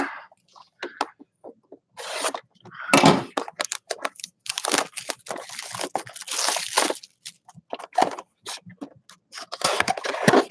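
Clear plastic shrink wrap being torn and crinkled off a cardboard trading-card box by hand, in a run of crackling bursts with the longest, densest crinkling about halfway through. Near the end comes more crinkling and rubbing as the box is handled and opened.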